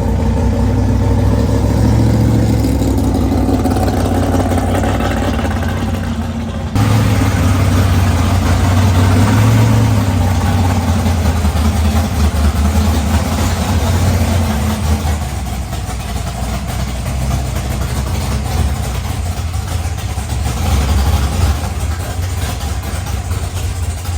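A car engine running loudly with a deep, steady low rumble. There is an abrupt jump in the sound about seven seconds in.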